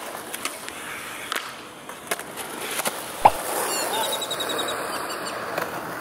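Skateboard wheels rolling over a concrete bank, with several sharp clacks of the board and one loud knock a little past the middle.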